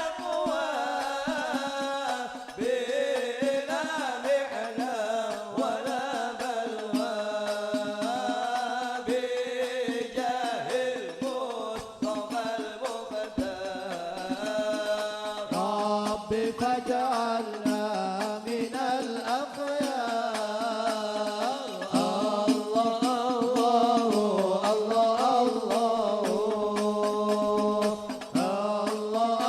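Sholawat devotional singing in Arabic, a melodic chant with long held notes, over hadrah frame drums (rebana) beating a steady rhythm.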